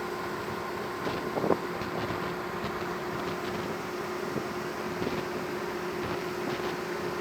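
Steady drone of a cargo ship's engine heard on board, with a constant hum and a wash of noise. A brief louder sound stands out about a second and a half in.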